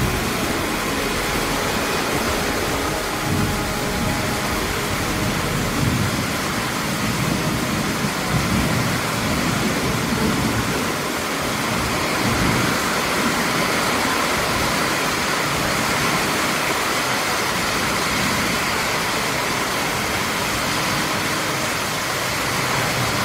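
Very heavy rain pouring down onto paving and roofs, a dense steady hiss, with gusts of wind swelling in now and then.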